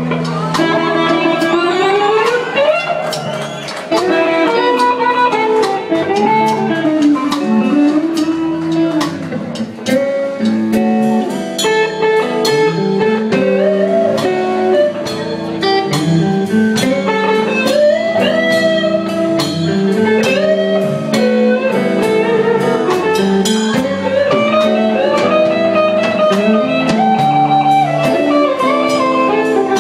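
Blues band playing an instrumental passage: a guitar lead line with bending notes over held lower notes and a steady beat.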